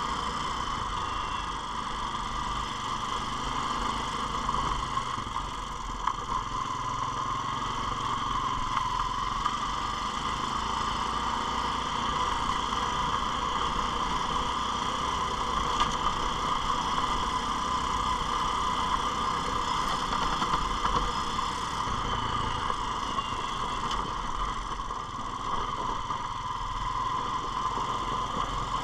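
ATV engine running steadily as the four-wheeler is ridden along a snowy trail.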